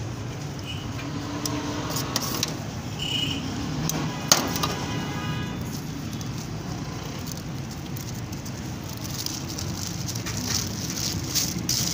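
Steady low background rumble with a few sharp metallic clinks of a knife against a steel tray, the loudest about four seconds in, then paper crinkling near the end as a roll is folded in butcher paper.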